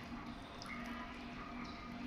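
Water dripping and lightly splashing as a parrot bathes, with small scattered ticks.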